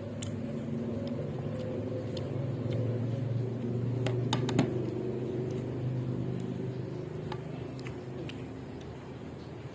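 A motor vehicle's engine rumble that swells and then fades as it passes. A few sharp clicks come about halfway through.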